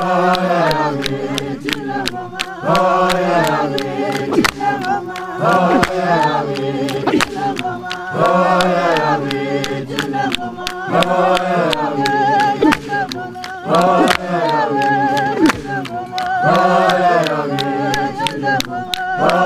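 Mpondo traditional choir of men and women singing together in phrases that rise and fall and repeat every few seconds, over a steady beat of sharp percussive strikes.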